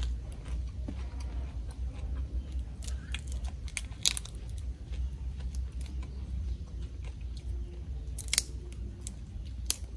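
Hand-peeling and eating boiled giant tiger prawns: shells crackling and snapping as they are pulled off, with chewing, and a few sharp cracks about four, eight and nine and a half seconds in. A low steady rumble runs underneath.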